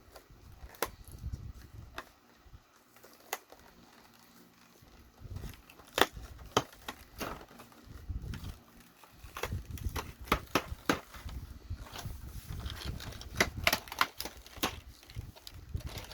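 Plastic packaging of a model kit part being opened by hand: irregular clicks and crackles, coming thicker in the second half.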